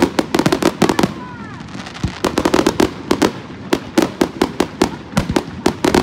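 Fireworks going off in rapid bursts of sharp crackling pops, several a second, with a short lull about a second in before the crackling picks up again.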